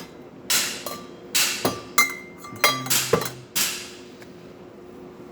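A series of about eight sharp clinks and knocks of hard objects handled at an espresso machine, some leaving a short ringing tone, over a steady faint hum. The knocks stop about four seconds in.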